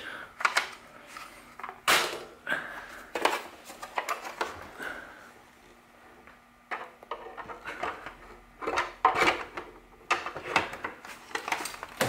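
Hard plastic housing parts of a Hoover upright vacuum clicking and knocking as they are handled and fitted together: scattered sharp clicks, with a quieter stretch in the middle.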